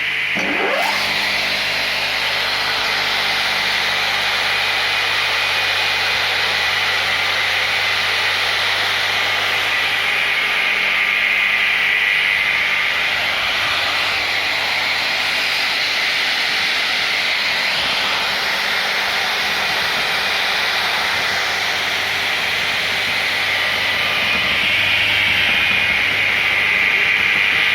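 ГП-500 slab-processing woodworking machine running with a loud, steady mechanical noise and a high steady whine. About half a second in, a brief rising whine.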